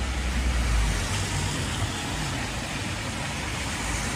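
Road traffic on a rain-wet street: a steady hiss of tyres on wet asphalt, with a low rumble during the first second.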